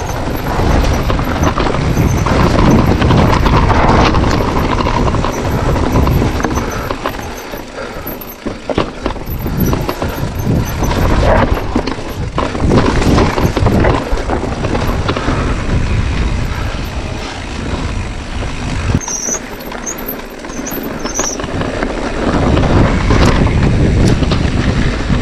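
Mountain bike descending a rough, rocky dirt trail: tyres crunching and bumping over rocks and gravel, with repeated knocks and rattles from the bike over the bumps, under heavy wind noise on the microphone. It eases off briefly twice.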